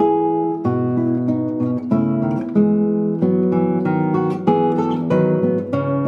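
Background music: acoustic guitar playing a steady run of plucked notes and chords.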